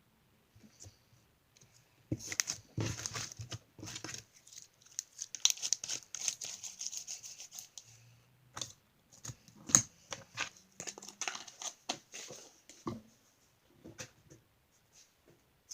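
Clear 'clicky' slime being squeezed, poked and stretched by hand, making irregular clicks, pops and crackles. The crackling is densest a couple of seconds in and again around the middle.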